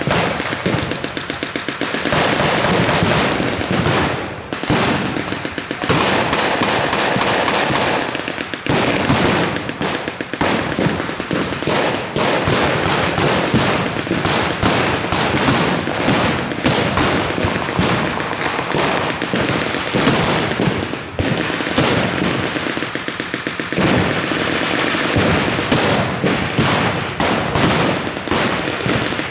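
Continuous blank gunfire from rifles and machine guns: rapid, overlapping shots and fast bursts with hardly a pause.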